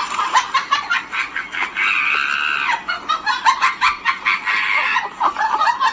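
Chickens clucking and squawking in a busy, continuous stream of short calls that stops abruptly just after the end.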